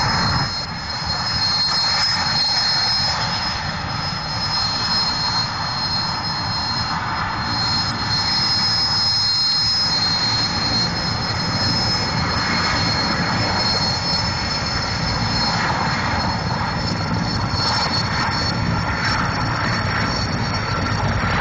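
Sikorsky S-64 Skycrane helicopter running close to the ground: a steady high turbine whine from its twin turboshaft engines over the chopping rumble of the main rotor.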